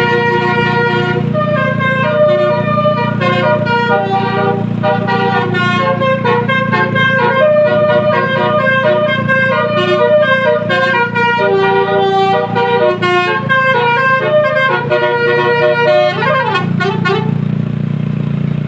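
Basuri multi-tone bus horn playing a fast melody of stepped notes over a steady low hum, with a few quick up-and-down pitch glides near the end.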